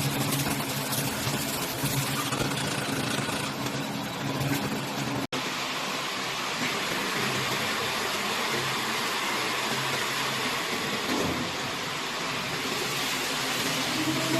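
Silage baler wrapper and feed wagon machinery running, a steady mechanical din with a low engine hum. The sound cuts out for an instant about five seconds in and comes back as a more even, hissing machine noise.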